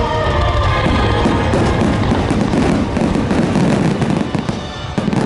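Fireworks display: aerial shells bursting and dense crackling, with music playing, its held notes most audible in the first second or so. The crackling turns sharper and more distinct near the end.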